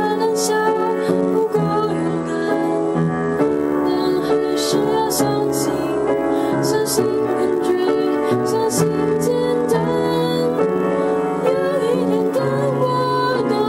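A slow song: a woman singing over keyboard accompaniment, with sustained chords under the melody.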